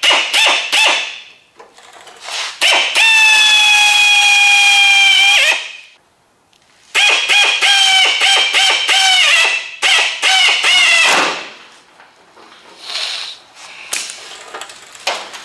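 Power drill screwing a sheet-metal quarter panel to a car body. A few short bursts, then one long steady whine of about two and a half seconds that dips as it stops, then a string of short stop-start bursts.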